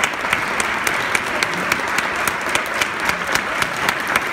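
Audience applauding, with one pair of hands close by clapping steadily, a few claps a second, over the general clapping.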